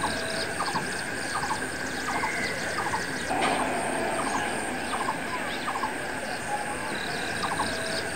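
Wild animal sounds: a steady high-pitched drone with a short double call repeating about every three-quarters of a second, pausing once near the end.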